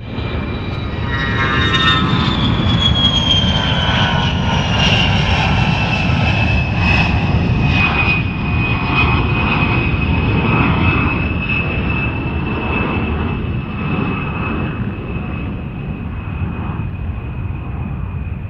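Attack jet flying past on a high pass: a deep engine rumble under a high turbine whine that falls in pitch over the first half as the jet goes by, then holds steady while the sound slowly eases off.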